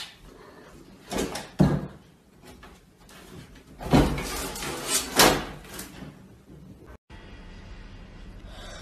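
A cat jumping at a door and hanging from its lever handle, the door knocking twice a little over a second in, then rattling loudly for a couple of seconds around the middle.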